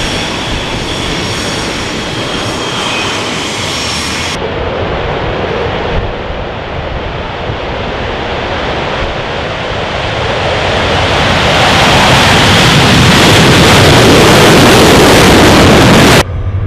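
Aircraft engine noise in edited shots: first a rush with a high whine, then an aircraft pass that builds steadily louder to a loud, full-range roar and cuts off abruptly near the end.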